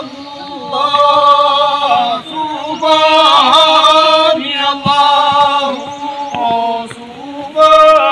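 Voices singing a chant-like song, in sung phrases of one to two seconds separated by short breaths.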